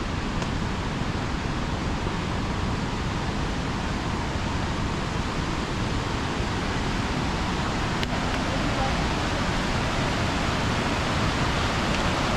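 Steady rushing of a waterfall, slowly growing louder.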